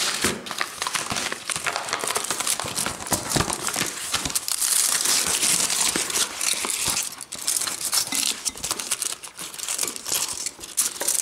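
A chocolate bar's paper sleeve and aluminium foil wrapper crinkling and crumpling as hands unwrap it, a dense run of small crackles that is busiest midway through.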